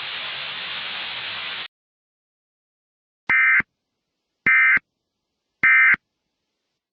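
A steady static hiss cuts off sharply about a second and a half in. After a short silence come three short, identical electronic data bursts, evenly spaced about a second apart: Emergency Alert System end-of-message tones marking the close of the alert.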